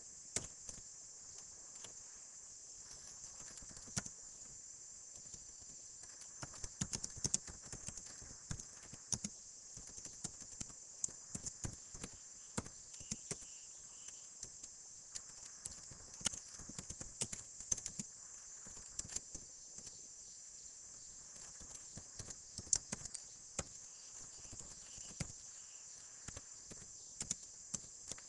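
Computer keyboard being typed on: irregular runs of key clicks, over a steady high-pitched hiss.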